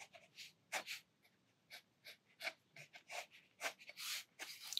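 Sakura Micron fineliner pen drawing ink lines on sketchbook paper: a series of faint, short scratching strokes.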